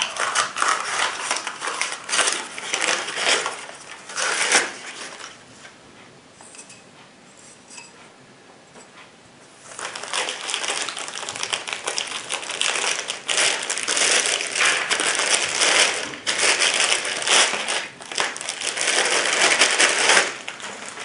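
Paper wrapping crinkling as it is peeled off a rifle-scope sunshade, then a lull of several seconds. After that comes louder, sustained crinkling of a clear plastic bag as a rifle scope is worked out of it.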